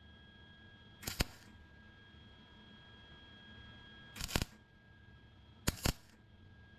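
Wire-feed (MIG) welder tack-welding a crack in a car's sheet-steel firewall: three short bursts of arc, about a second in, just past four seconds and near the end, each lasting well under a second. The welds are kept short so the panel does not get too hot.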